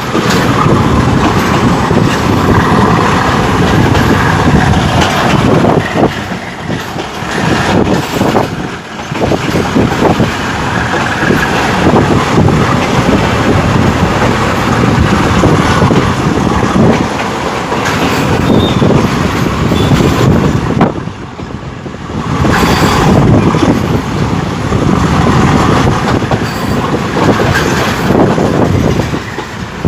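Express passenger train running in, its wheels and carriages rumbling loudly over the rails with sharp clicks at the rail joints; the noise eases briefly twice.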